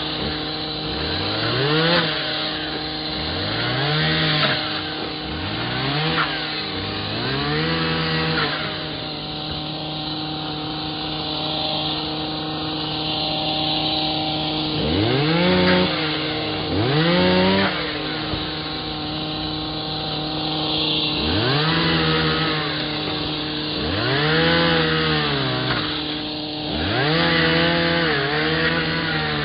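Two-stroke chainsaw revving up and dropping back about ten times, with a steady engine hum underneath.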